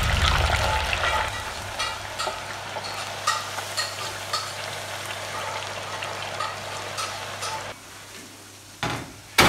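Potato chips deep-frying in hot oil in an electric deep fryer: a steady sizzle with scattered pops and crackles, which drops away about three-quarters through. Two sharp knocks come near the end.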